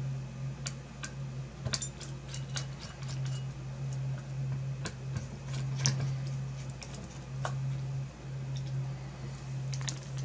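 Irregular small metallic clicks and ticks of a screwdriver working the spring-clip screws on the back of a graphics card, over a low steady hum that drops out briefly a few times.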